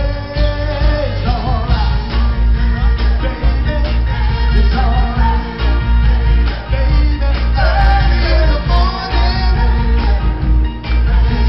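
Male soul vocal group singing live, lead and harmony voices over a band with drums and a heavy bass beat.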